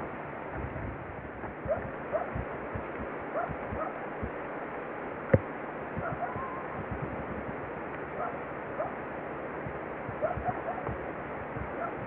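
Outdoor field sound around a grazing bison: a steady rushing background noise with soft low thuds and crunches, and a scattering of short, rising squeaky calls. A single sharp click about five seconds in is the loudest sound.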